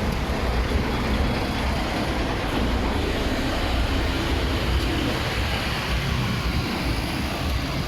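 Steady outdoor street noise with a low, uneven rumble of road traffic.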